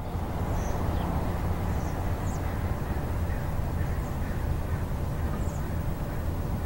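Outdoor ambience: a steady low rumble with a handful of faint, short, high bird-like chirps scattered through it.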